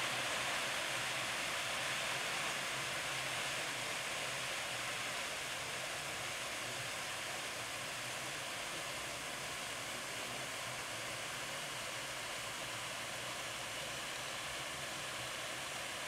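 Small artificial waterfall pouring over rocks into a pond: a steady, even rushing that eases slightly over the first few seconds.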